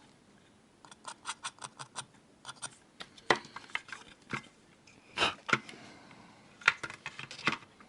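Small objects being handled on a workbench: a quick run of light clicks, then several sharper knocks and taps, as of tools and the opened device's parts being picked up and set down.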